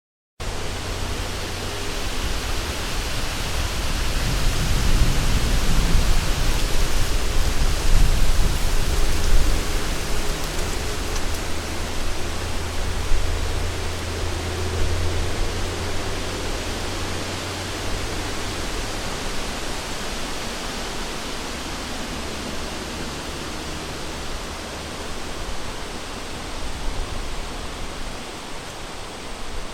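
Wind blowing through a forest: a steady rushing with low rumbling gusts that swell about four to ten seconds in, then ease off slowly.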